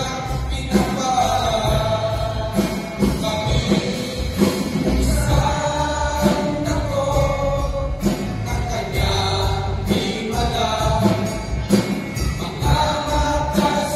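A men's choir singing a Tagalog gospel hymn over electronic keyboard accompaniment with a steady beat.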